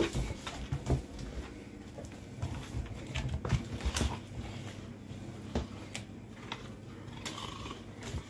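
Scattered clicks and knocks as a Rottweiler moves about on a hard floor and takes a plastic laundry basket in its mouth, with a few low thumps in the first half.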